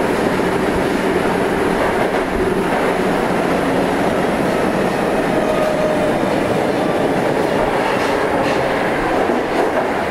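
Osaka Metro 30000-series subway train running through the tunnel, heard from inside the car: a loud, steady rumble of wheels on rail, with a few clicks near the end.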